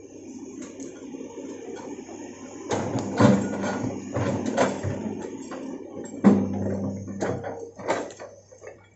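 Hitachi hydraulic excavator's diesel engine running steadily, with a string of sharp metallic clanks and knocks as the bucket digs and swings, starting about three seconds in and loudest around three and six seconds.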